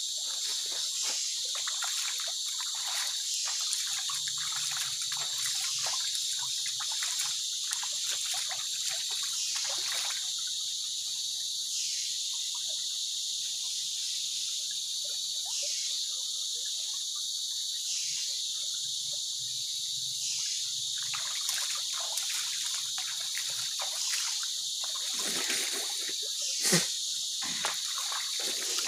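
A steady, high-pitched chorus of insects over a shallow stream trickling. Footsteps crunch on gravel in the first seconds, and near the end hands splash in the water, with one sharp splash about 27 seconds in.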